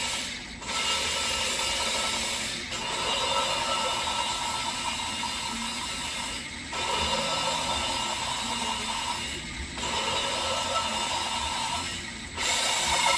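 A valve being lapped into its seat in a Volvo 850 cylinder head, spun by a drill on its stem with grinding compound between valve face and seat: a steady gritty grinding that runs for two to three seconds at a time with brief pauses between runs.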